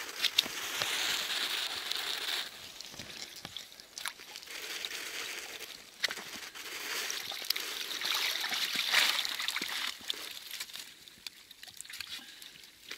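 Water streaming, dripping and sloshing off a fyke net full of fish as it is hauled up out of an ice hole, with small splashes in the hole. The water runs heaviest at the start and again in the middle.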